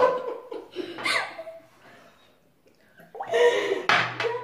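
A girl laughing, then after a short pause a loud wet swishing and gargling of water in her mouth.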